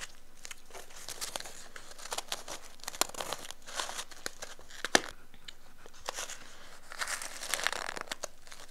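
Fingers digging into and squeezing powdery chunk ice in a plastic tub: crunching and crinkling in several bursts, with a sharp click about five seconds in.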